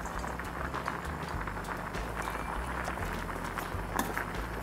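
A pot of pasta at a rolling boil on a gas hob, a faint steady bubbling over a low electrical hum, with a light click about four seconds in.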